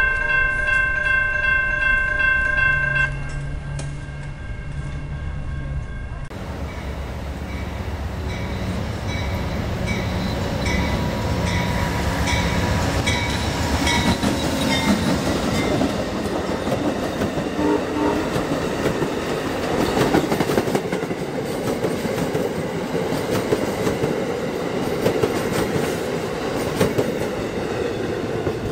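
Railroad crossing bell ringing in rapid pulses, stopping about three seconds in. Then an Amtrak passenger train passes the crossing: its GE P42DC diesel locomotive rumbles by, followed by the passenger cars, with a string of clicks from the wheels over the rails.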